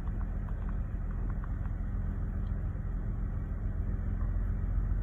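2003 Chevy Malibu engine idling steadily just after starting, running once the wires behind the ignition switch were wiggled, which points to a loose ignition-switch connection behind the intermittent no-start.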